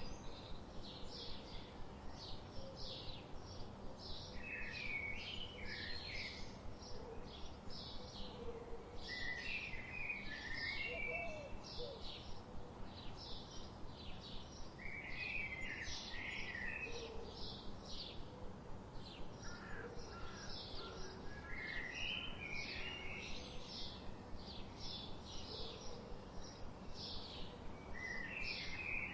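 Birds singing: short high notes repeated about twice a second throughout, with a lower warbled phrase every five or six seconds, over a faint steady hiss.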